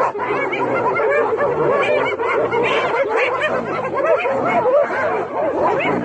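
A pack of hyenas calling together in a continuous giggling chorus: many overlapping short, laugh-like cries that each rise and fall in pitch.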